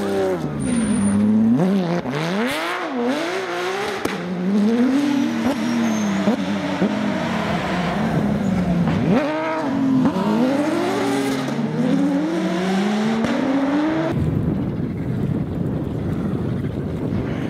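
Rally car engine revving hard through a corner, the pitch climbing and dropping again and again with gear changes and lifts off the throttle. About 14 seconds in the sound cuts to a rougher, noisier engine sound from another rally car approaching.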